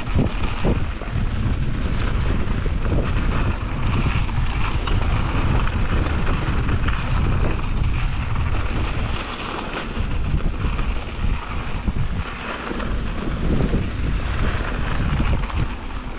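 Wind buffeting an action-camera microphone on a mountain bike riding downhill, over the rushing noise of tyres on a dirt trail, with scattered small clicks and rattles from the bike.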